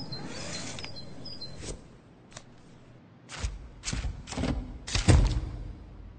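Handling noise of hands with a small model car and a card on a tabletop: a few separate soft knocks and thuds, the loudest about five seconds in. A faint tail of music ends about two seconds in.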